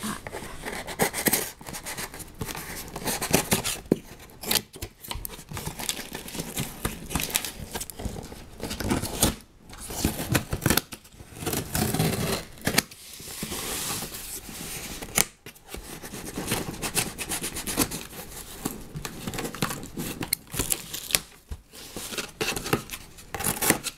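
Scissors snipping and slicing through packing tape on a cardboard box, in an irregular run of short cuts, with the tape tearing and the cardboard rustling as the box is opened.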